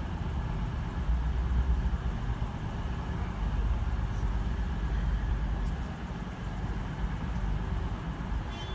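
CrossCountry Voyager diesel multiple unit's underfloor engines idling while the train stands at the platform: a steady low rumble. A short high-pitched tone sounds near the end.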